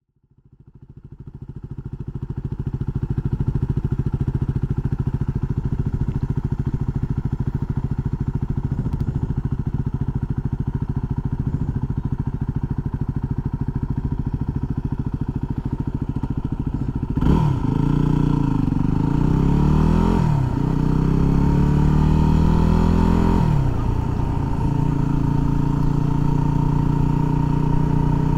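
Yamaha WR250R's single-cylinder four-stroke engine idling steadily, heard through a helmet-mounted microphone. After a long idle the bike pulls away, revving up through three upshifts, then settles into a steady cruise.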